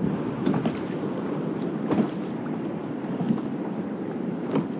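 Small ocean waves lapping and slapping against a plastic kayak hull, with wind on the microphone; a few sharper slaps stand out, the clearest near the end.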